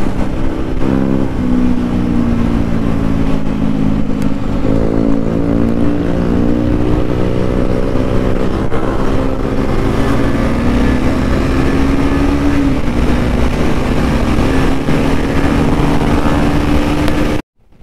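Single-cylinder motorcycle engine running at road speed under the rider. Its pitch shifts about a second in, jumps up near five seconds and then slowly sinks as the bike eases off. The sound cuts out briefly near the end.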